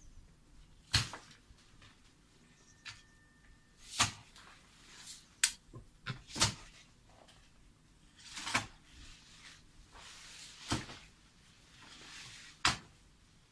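A series of about seven sharp knocks or tool strikes, irregularly spaced a second or two apart, several followed by a brief scraping hiss.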